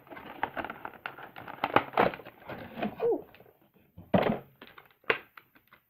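Cardboard toy box and the clear plastic bag around a vinyl figure being handled: crackling and rustling packaging for about three seconds, then two sharp knocks about a second apart.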